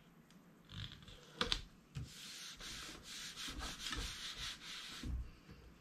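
Hands rubbing and sliding a card-stock panel against a cutting mat, giving a dry papery rustle. There are a couple of sharp taps between one and two seconds in.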